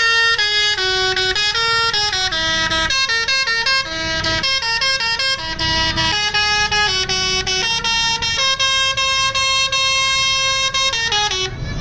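Bus telolet musical air horn playing a long melody of held notes, one after another, with a long sustained note near the end before it cuts off.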